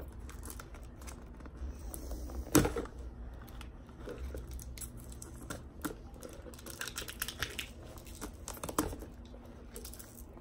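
A cardboard mailing tube being worked open by hand: paper and tape crinkling and scraping as fingers pry at the end cap, with a sharp knock about two and a half seconds in and a smaller one later on.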